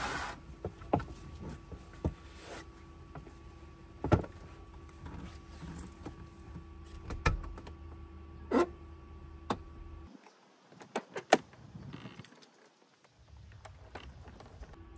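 Scattered knocks, clicks and rustles of someone climbing and shifting about on a bed inside a camper van with a bowl in hand, over a steady hum that drops out about ten seconds in and returns near the end.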